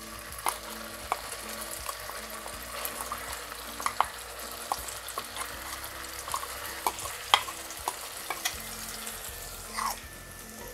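Hot oil in a non-stick kadhai sizzling as a wet ground coconut-and-herb masala paste is scraped into it, a steady hiss broken by scattered sharp pops and clicks.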